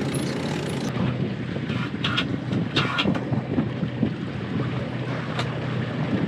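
Wind buffeting the microphone over the rush of water along the hull of a sailboat under way, with a few short squeaks about two to three seconds in.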